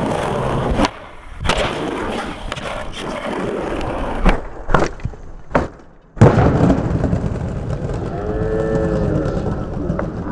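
Skateboard wheels rolling over stone pavement, broken by a few sharp board clacks around the middle and a loud slam of the board about six seconds in, then rolling on.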